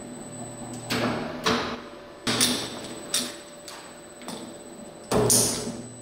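Twin-shaft shredder's rotating steel blades knocking a steel hydraulic bottle jack around without biting into it: irregular metal clanks with a short ring, about one a second, the loudest near the end, over the machine's steady hum.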